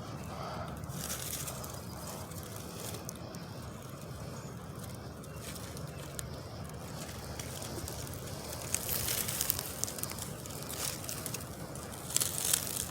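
Faint rustling and scuffling of hands moving through dry ground litter, with a few louder crackles about nine seconds in and again near the end.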